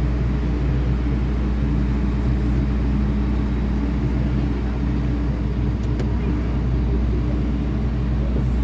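Inside a Hong Kong MTR M-Train car running through a tunnel: a steady low rumble of wheels and running gear with a constant hum. The station platform comes alongside near the end.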